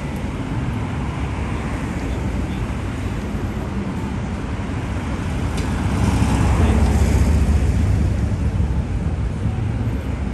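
Busy city street ambience with steady traffic rumble. About six seconds in, a heavier vehicle passes close, and the low rumble swells for a couple of seconds before easing off.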